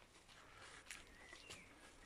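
Near silence: faint outdoor quiet with a few soft ticks and a couple of faint chirps.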